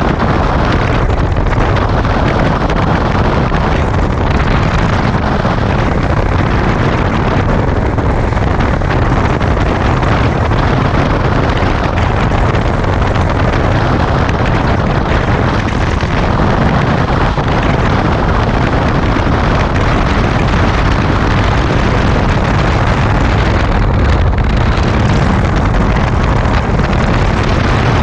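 Steady rush of wind over the microphone of a camera on a motorcycle at road speed, with the motorcycle's engine running underneath.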